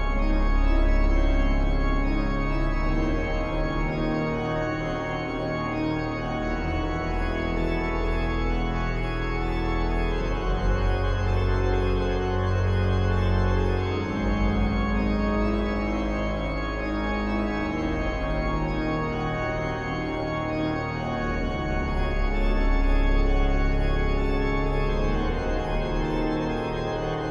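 Intro music with held chords over a deep bass, cutting off suddenly at the end.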